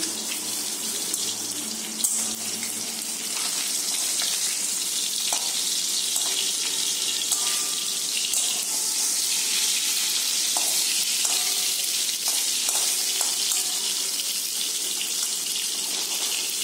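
Fish steaks frying in hot oil in a steel wok: a steady sizzle with a few crackles and clicks.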